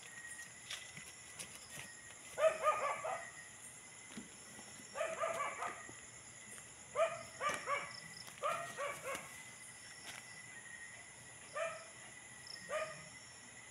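A dog barking in short bursts of a few barks each, with single barks near the end, over a steady high chirring of crickets.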